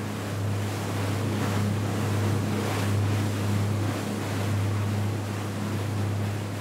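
Motorboat engine running steadily with water rushing and splashing past the hull, and wind buffeting the microphone.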